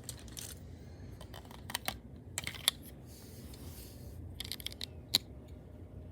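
Small hard plastic clicks and rattles of a Lego-brick pistol being handled, in four short clusters with gaps between.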